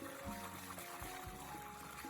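Background music: a melody of held notes over a low, regular beat.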